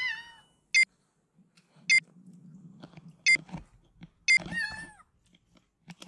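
A young kitten meowing during a bath: one short meow at the start and several more near the end. Four short electronic beeps come about a second apart in between.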